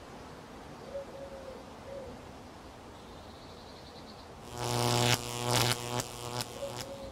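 Garden ambience: a pigeon cooing softly a few times, and an insect buzzing loudly close by for about two seconds in the second half.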